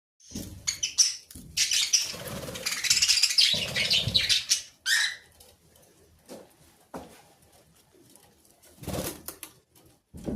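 Small pet parrot rustling and pecking at green leaves in loud noisy bursts, with a short chirp about five seconds in and scattered ticks afterwards.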